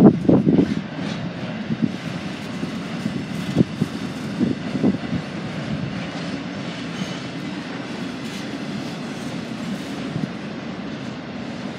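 Freight train cars rolling past, a steady rumble with wheel clatter and clanks. It is loudest in the first second, then settles into a lower, steadier rumble with occasional knocks.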